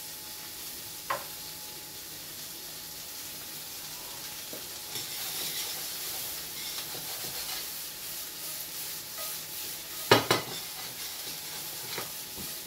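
Sliced mushrooms sizzling in oil in a stainless steel frying pan while metal tongs stir them, scraping and knocking against the pan. The loudest knock comes about ten seconds in.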